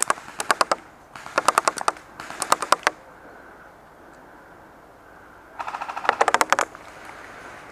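Airsoft gun firing on full auto in four short bursts of rapid, sharp clicks, about a dozen shots a second, with a longer pause before the last burst.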